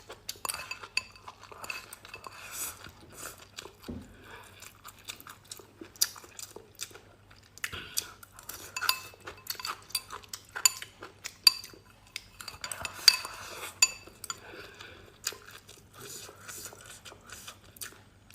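Eating sounds: utensils clicking and clinking against a dish, mixed with crunchy chewing, in irregular clusters of short clicks.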